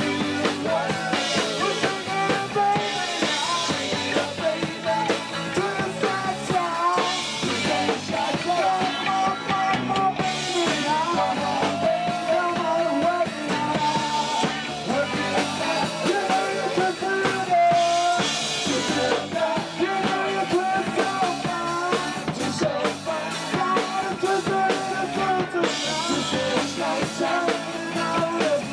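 Live rock band playing a song, with a drum kit and singing.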